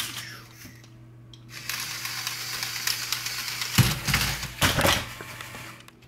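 A LEGO Technic remote-control car's Power Functions motor and plastic gearbox whirring as it drives, followed by two sharp plastic knocks about four and five seconds in as the car is picked up by hand.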